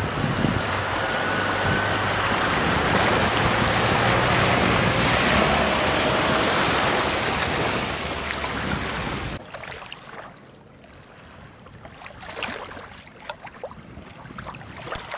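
Chevrolet Niva SUV driving through shallow water, water splashing steadily around its wheels with the engine running underneath. About nine seconds in the sound cuts off abruptly to quiet small waves lapping, with a few light clicks.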